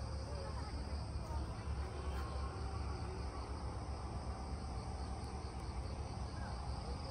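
Insects chirping in a steady, pulsing high trill over a constant low rumble.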